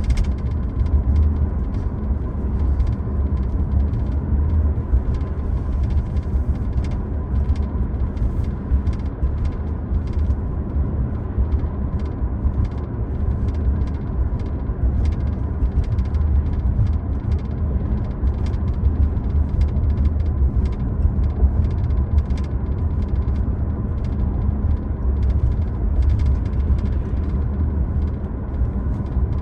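Steady low road and tyre rumble of a 2025 Toyota Prius Limited hybrid on the move, heard from inside the cabin, with a faint steady whine above it and frequent light clicks and knocks from the road surface.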